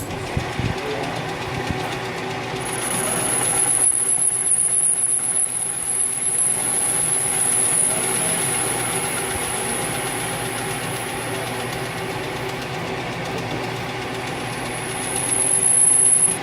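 Metal lathe running while a facing cut is taken across an aluminum workpiece. A thin high whine from the cut comes in a few seconds in, fades after the middle, and returns louder near the end.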